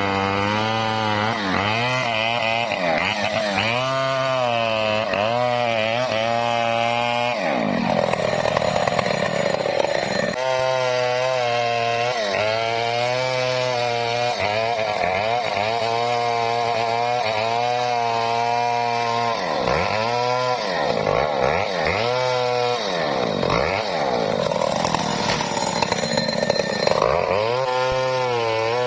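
Two-stroke chainsaw cutting teak, its engine pitch rising and falling as the chain bites and bogs under load. It dips deeply about seven seconds in and several times around twenty seconds in.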